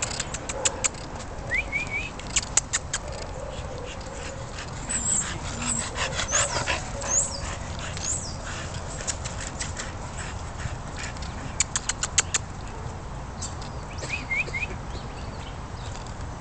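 A dog giving a few short, high, rising whimpers in quick threes, between bursts of rapid sharp ticking sounds.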